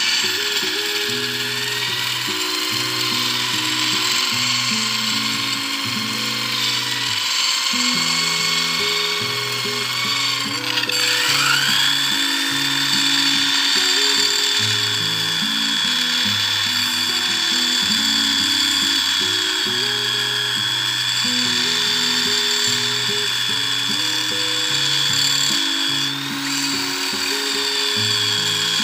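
Handheld power tool spinning a grinding disc against an electric planer's steel blade, a steady high whine that sags in pitch about a third of the way in and again near the end as the blade is pressed on, then recovers. Background music with a low melody plays underneath.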